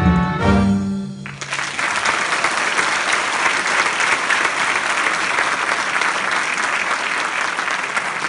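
The military band and choir end the piece on a held final chord that cuts off a little over a second in, and the audience breaks into steady applause.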